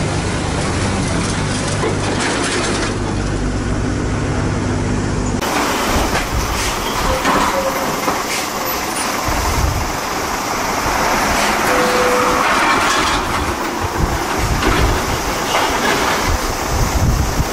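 A diesel truck engine running steadily for the first five seconds; then a cab-over tractor-trailer hauling two container trailers rolls slowly past, with rumbling road and chassis noise, a short squeal about twelve seconds in, and wind buffeting the microphone.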